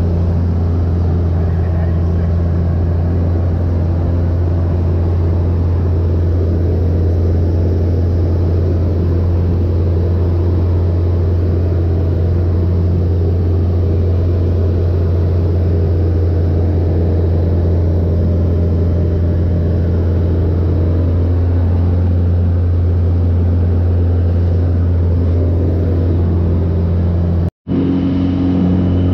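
Cabin drone of a Jabiru J160-D light aircraft in cruise: its four-cylinder engine and propeller running steadily with a deep hum, heard from inside the cockpit. The sound cuts out for an instant near the end and comes back with a slightly different tone.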